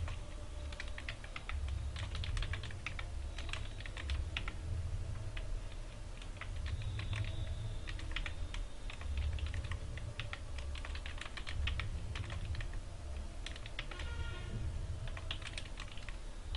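Typing on a computer keyboard: runs of quick keystrokes with short pauses between them, over a low steady background hum.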